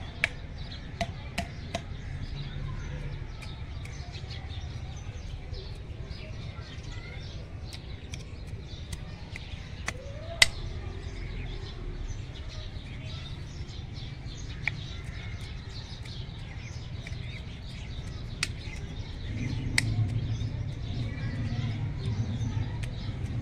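Small pronged hand cultivator chopping and scraping into dry, clumpy garden soil, heard as scattered sharp clicks and scrapes over a steady low outdoor rumble. A louder low hum comes in near the end.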